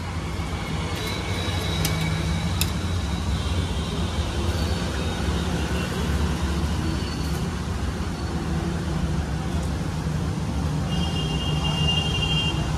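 Steady low rumble of road traffic from the street, with a couple of sharp clicks about two seconds in and a brief high tone near the end.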